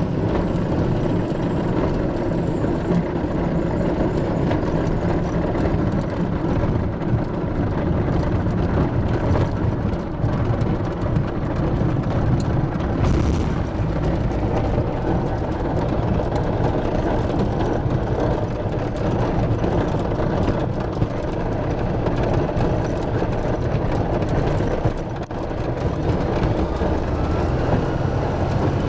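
Steady, loud rumble inside an ultralight plane's cockpit as it rolls across a grass airfield, with a short dip in level about 25 seconds in.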